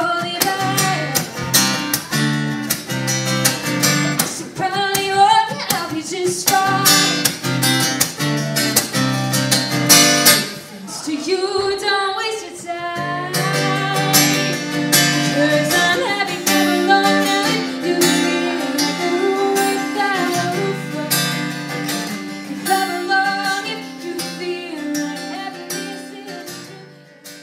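A woman singing a song to her own strummed acoustic guitar, the chords ringing under the melody. The music fades out near the end.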